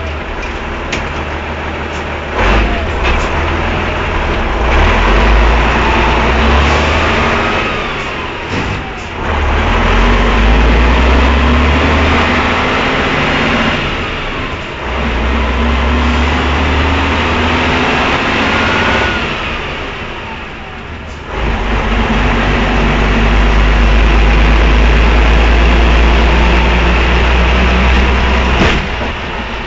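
Tatra truck's diesel engine working hard, heard from inside the cab, dropping back briefly about three times and then pulling again, with a rising whine now and then. Sharp knocks and rattles from the cab on the rough track, the loudest near the end.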